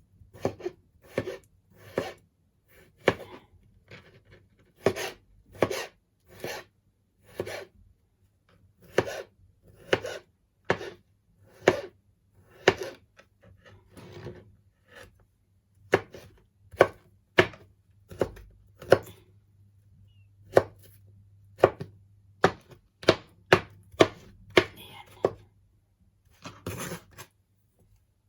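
Kitchen knife chopping garlic cloves on a cutting board: sharp separate strokes, about one or two a second, with a short pause near the end.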